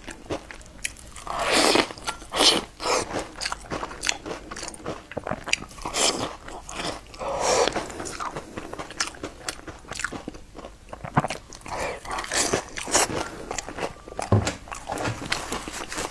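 Crunchy food being bitten and chewed: a steady run of small crackles with several louder crunches spread through.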